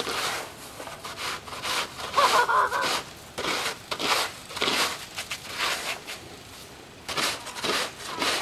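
Snow shovel blade scraping packed snow and slush off pavement in repeated, irregular strokes, with a short quieter pause near the end.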